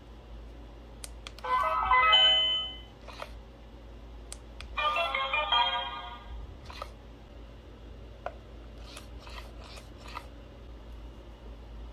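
Hello Kitty Purse Pets robotic toy's electronic speaker playing two short chiming jingles as its nose button is pressed to switch play modes, with a few light clicks between and after.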